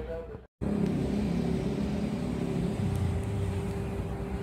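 Diesel locomotive engine running steadily, a low drone with a held tone. It comes in after a short dropout about half a second in.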